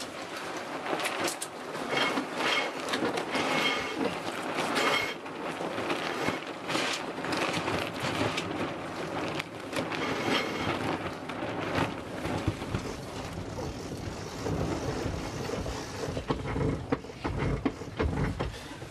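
Wind over the microphone and water noise of a sailboat under sail: a steady rough rush with clattering and a few short high squeaks. The wind buffets the microphone harder near the end.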